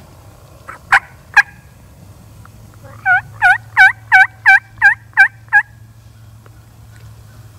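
Wild turkey calling: two or three short, sharp clucks about a second in, then a loud run of eight evenly spaced yelps, about three a second, starting around three seconds in.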